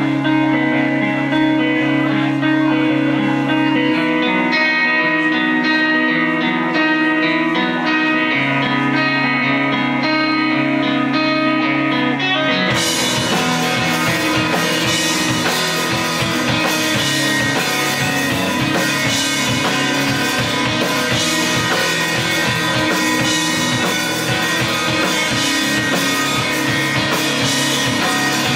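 Live post-hardcore/emo band playing an instrumental passage: electric guitar and bass guitar play ringing note patterns on their own, then about thirteen seconds in the drum kit with cymbals comes in suddenly and the whole band plays loudly together.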